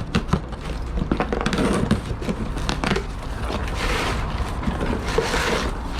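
Handling noise: a busy run of crinkling crackles and sharp clicks over a steady low rumble.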